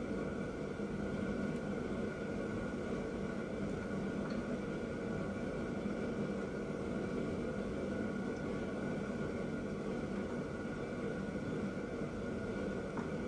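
Steady mechanical hum with a constant hiss and several fixed tones, unchanging throughout, with no strokes or impacts.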